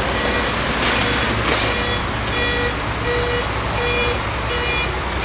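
A vehicle's reversing alarm beeping steadily, about two beeps a second, over the low rumble of a running engine. Two short hisses sound about a second in.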